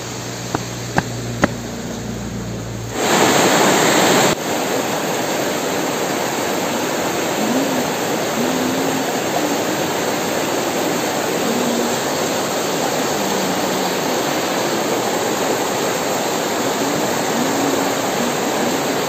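Shallow mountain river rushing steadily over stones. The river sound starts about three seconds in, with a louder surge for the first second or so; before it there is a quieter low hum with a few sharp clicks.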